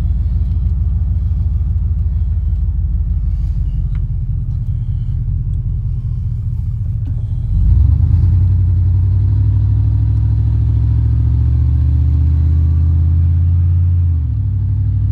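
Truck engine running under way as it drives, a steady low drone; about halfway through it grows louder and its note climbs steadily as the truck accelerates, then drops near the end as it shifts up.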